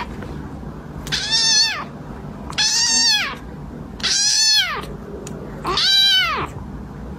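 Orange tabby kitten meowing four times, about a second and a half apart, each time a hand pats its head. Each meow is high-pitched and rises then falls.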